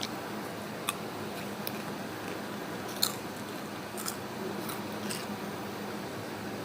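Potato chips being bitten and chewed: a handful of short, sharp crunches, the loudest about three seconds in.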